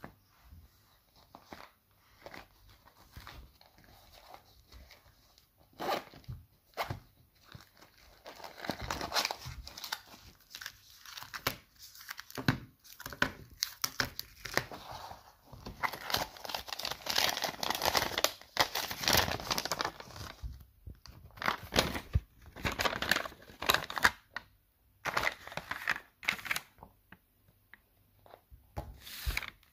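Plastic packaging and chocolate-bar wrappers crinkling, rustling and tearing as they are opened and handled, in irregular bursts of varying loudness, busiest through the middle.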